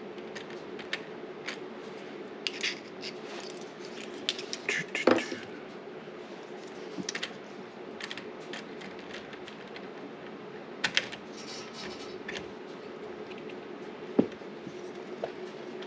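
Scattered small metal clicks and scrapes of a door lever and its mounting hardware being fitted into the door, the sharpest click about five seconds in with a brief ring. A steady low hum runs underneath.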